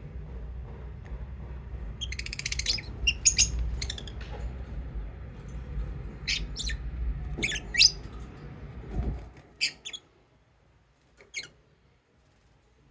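Pet lovebirds chirping and squawking: a rapid buzzy chatter about two seconds in, then short sharp high chirps every second or so. A low background rumble underneath stops suddenly about nine seconds in, leaving one lone chirp near the end.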